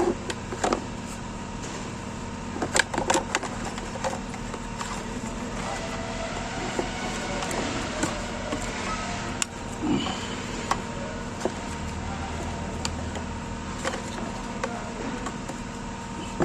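Scattered clicks and knocks of an electrical connector and plastic parts being handled and refitted by hand, over a steady background hum.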